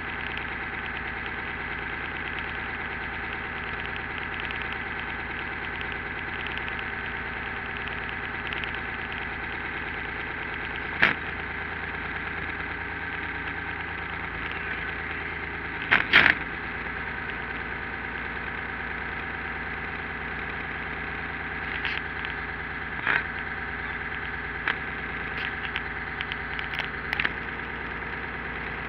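The Crudebaker's engine idling steadily, with several sudden sharp knocks or pops, the loudest about halfway through and a cluster of smaller ones near the end.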